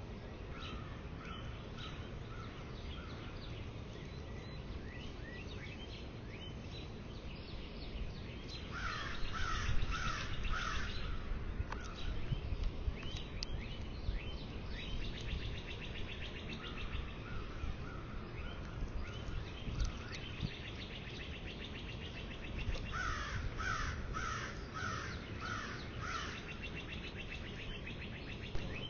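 A bird calling in runs of about five harsh repeated notes: two loud runs and fainter ones between them. Lighter bird chirps and a steady low wind rumble run underneath.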